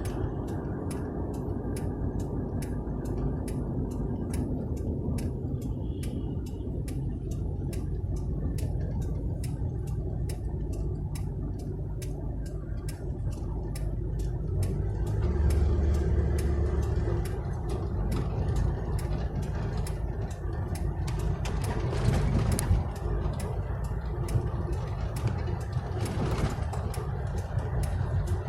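Vehicle engines and road traffic rumbling steadily, louder for a couple of seconds around the middle, with a regular ticking about twice a second.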